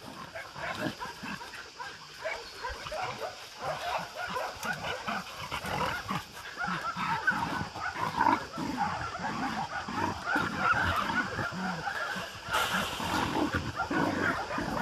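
Dogs play-fighting: a dense run of short, irregular dog sounds.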